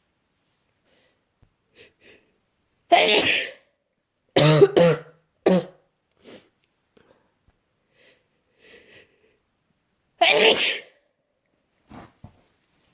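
A person with a bad cold sneezing and coughing. There is a loud sneeze about three seconds in and a quick run of three harsh coughs around five seconds. Another loud sneeze comes a little after ten seconds, with faint sniffs and breaths between.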